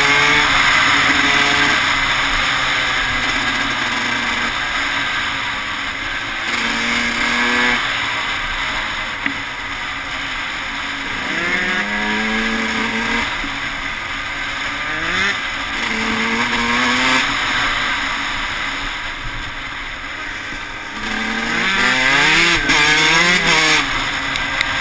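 Yamaha YZ125 two-stroke single-cylinder dirt bike engine heard up close while riding, its revs repeatedly climbing and dropping as the rider works the throttle and gears, with quick rises and falls near the end.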